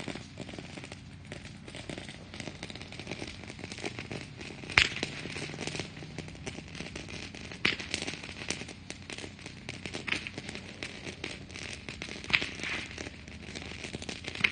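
Crackling pyrotechnics going off: a dense, continuous crackle with several louder sharp pops about two to three seconds apart.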